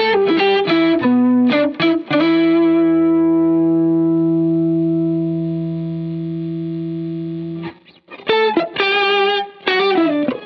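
Electric guitar played through an EHX Nano POG octave pedal and Line 6 HX Stomp, with some distortion. A few quick notes lead into a chord held for about five seconds that slowly fades and is cut off short, then fast phrases start again.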